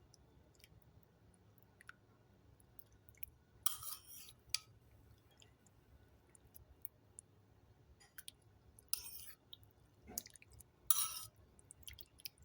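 Faint sounds of someone eating soup: a handful of short sips and mouth noises with small clicks in between.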